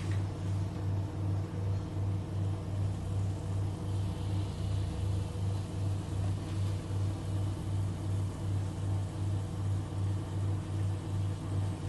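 A loud, steady electrical hum that swells and fades about two and a half times a second, over a faint hiss.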